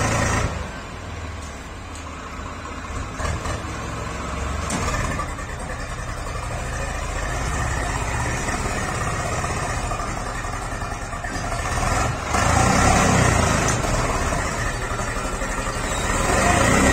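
Swaraj 735 FE tractor's diesel engine running under heavy load as it hauls a trolley full of earth through mud, getting louder about twelve seconds in and again near the end as it is worked harder.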